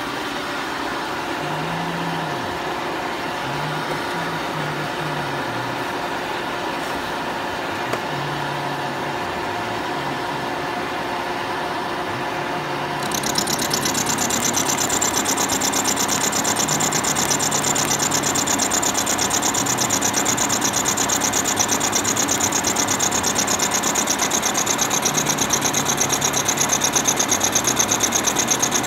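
Milling machine running through a roughing cut in Ampco 18 wear bronze. About halfway the end-mill cutting sound becomes louder and higher-pitched, with a fast, even chatter as the cutter throws chips.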